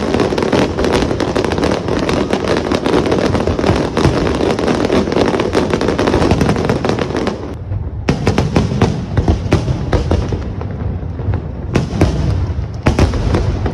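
Fireworks display: a dense barrage of crackling bursts and bangs for about seven seconds, then thinning to more separate booms over a low rumble.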